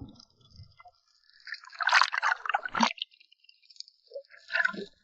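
Water splashing and gurgling in two bursts, a loud one lasting about a second and a half, then a shorter one near the end.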